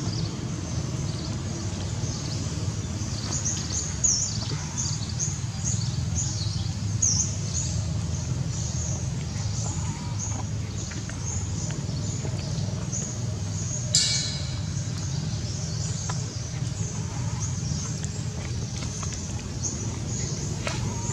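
Outdoor ambience: birds chirping over and over in short high downward notes, thickest in the first half, over a steady low rumble. A single sharp snap about two-thirds of the way through.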